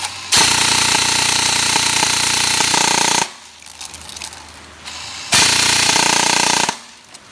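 E&C 302S M4-style airsoft electric gun with speed-tuned internals firing on full auto: one long burst of about three seconds, then a shorter burst of just over a second near the end.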